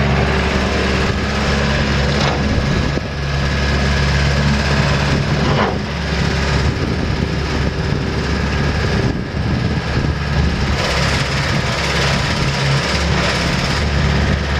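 Bobcat S570 skid steer loader's diesel engine running steadily, its pitch shifting a few times.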